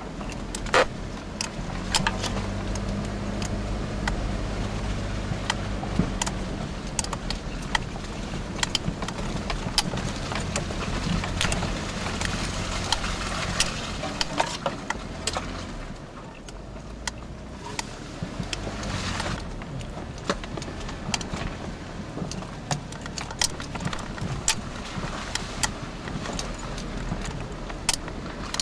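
Off-road 4x4 driven slowly over a rough, rutted dirt trail, heard from inside the cab: a steady low engine drone that eases off past the middle, with frequent sharp rattles and knocks from the body and loose items as it bounces.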